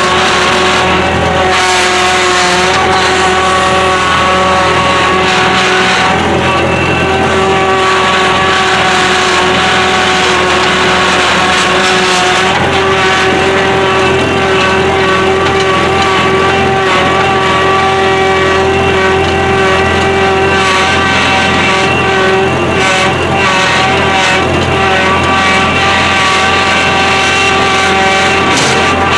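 Skid steer engine running steadily while its over-the-tire tracks clatter as the machine drives, a continuous clickety-click.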